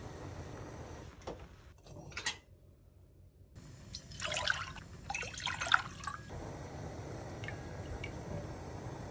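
Water poured from a glass measuring cup into an empty pot, splashing for about two seconds, followed by a couple of light ticks as sauce is tipped in.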